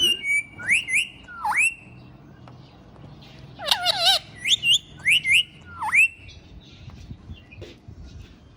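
Ringneck parrot calling: loud, sharp squawks that sweep up in pitch. They come in two bursts, with a wavering, warbled call between them about four seconds in, and the bird falls quiet after about six seconds.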